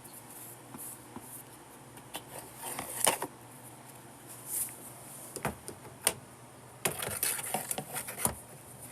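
Handling noise from the vacuum's plastic attachments and body: scattered clicks, knocks and light rattles, busiest near the end.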